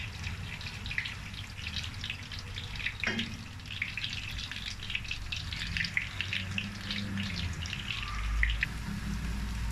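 Butter and a little oil sizzling and crackling in a small pan over a gas flame as the butter browns, with a single click about three seconds in.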